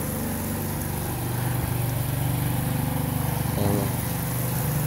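A small engine running steadily with a low, even hum.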